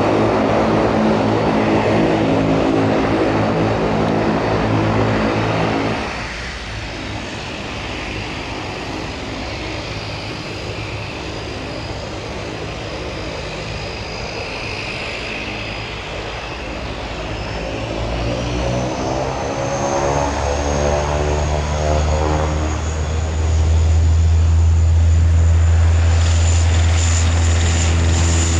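De Havilland Canada Dash 8 turboprop running, a dense propeller drone that cuts off abruptly about six seconds in. It is followed by a Dash 8's propellers rising in pitch and growing much louder in the second half as its engines spool up.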